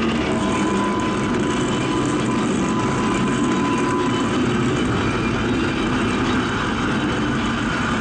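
Railway turntable rotating, its machinery sound amplified through speakers as part of an experimental sound performance. It is a continuous, dense grinding rumble, with a thin steady whine over the first half.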